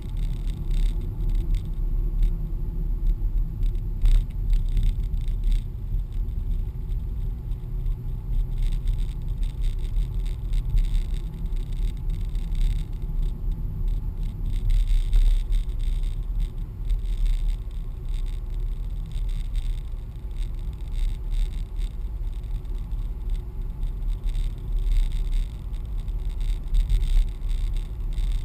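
Car driving along at speed, heard from inside the cabin: a steady low rumble of engine and road noise, with one brief click about four seconds in.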